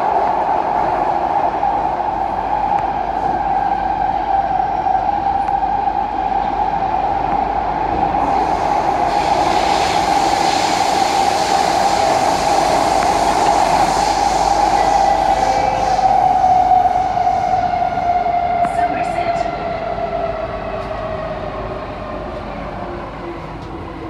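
Kawasaki-Sifang C151B metro train heard from inside the car while running: a steady high whine over the running noise, with a hiss swelling up in the middle. Over the last several seconds the whine slowly falls in pitch and the sound eases off as the train slows.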